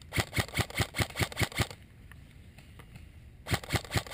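Airsoft gun firing rapid single shots, about five a second: a string of about nine shots, a pause of nearly two seconds, then another string starting near the end.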